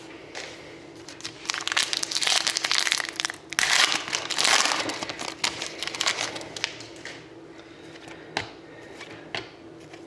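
Crinkling and crumpling of a foil trading-card pack wrapper, loudest for about four seconds starting a second or so in, followed by fainter scattered rustles and clicks.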